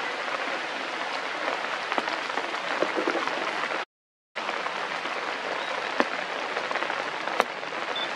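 Steady hiss of water drops falling on leaves, with a few sharp ticks of single drops. The sound cuts out completely for about half a second around four seconds in.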